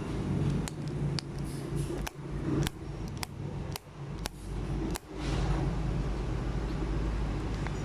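A run of about eight sharp clicks or taps, roughly every half second, over a steady low hum; the clicks stop about five seconds in and the hum carries on.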